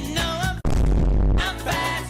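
Pop-rock song with a male singer, cut off about half a second in by a 'vine boom' meme sound effect: one deep, loud boom lasting most of a second, after which the song resumes.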